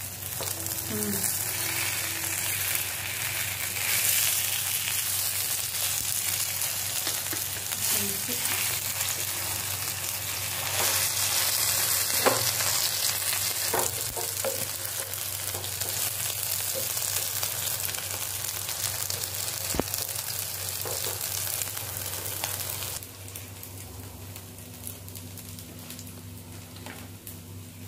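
Cornflour-coated potato tikkis sizzling as they fry in a pan, a dense steady sizzle with a few light clicks of a utensil. About 23 seconds in the sizzle drops suddenly to a much quieter level.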